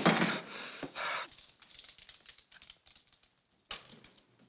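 Scattered light taps and clatter, thinning out over a couple of seconds, with a brief louder scrape near the end.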